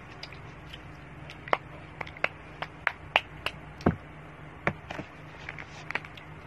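Irregular small clicks and taps, about fifteen scattered through, the strongest a little before the middle, over a low steady hum.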